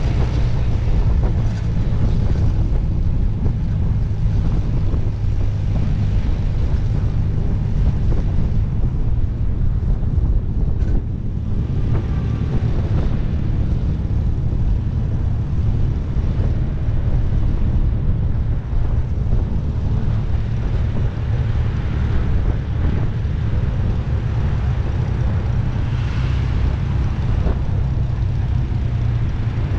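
Motorcycle engine running steadily while being ridden, with wind noise on the microphone.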